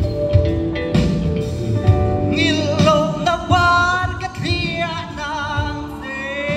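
A man singing into a microphone over amplified backing music with a steady beat. His voice comes in about two seconds in, holding notes with a wavering vibrato.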